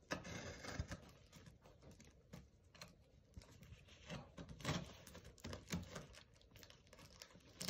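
Faint scratching and crinkling as a blade is worked through packing tape and plastic wrap on a parcel, in a string of short scrapes and clicks.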